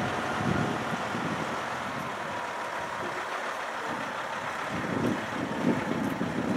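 Diesel engine of a Kenworth cab-over truck running at low revs: an uneven low rumble that swells about five seconds in.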